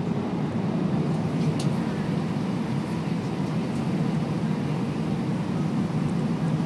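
Steady cabin noise inside a jet airliner on final approach: the engines and rushing air make an even, low-pitched drone.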